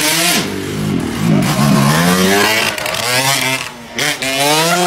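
Dirt bike engine revving hard several times, its pitch climbing with each rev and dropping back between them.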